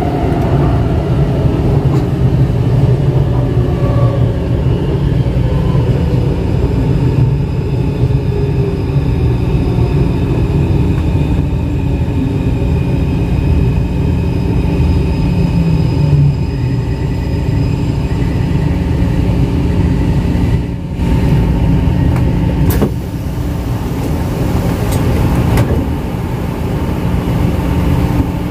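A steady, loud low rumble with a faint hum, like a motor or fan running continuously.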